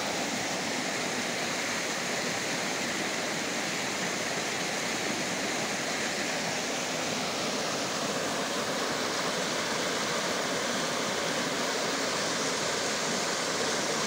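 A stream swollen by heavy rain, running fast and foaming over rock ledges: a steady rushing of water.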